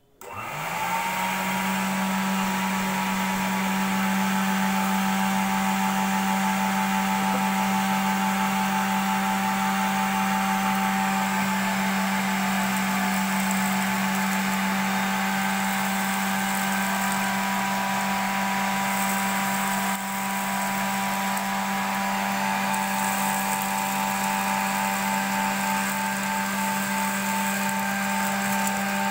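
The electric motor of a homemade paint-bucket vacuum cleaner is switched on. It spins up within about a second, then runs steadily with a hum and a higher whine over rushing air.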